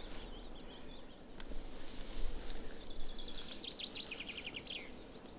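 Songbirds singing over a steady low rumble of outdoor noise: scattered chirps at first, then about halfway through a fast trill of high notes, some ten a second, ending in a short flourish. A single sharp click comes about a second and a half in.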